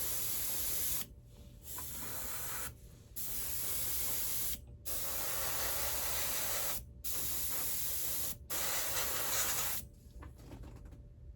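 Airbrush spraying flat black paint, a steady hiss of air in about six long bursts with short breaks as the trigger is let off, stopping about ten seconds in.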